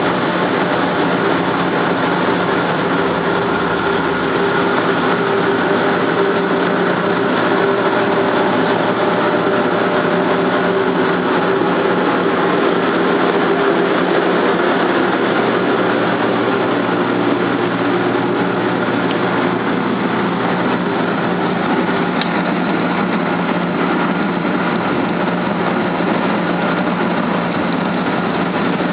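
Tour boat's engine running steadily under a constant rushing noise, heard from aboard the boat under way.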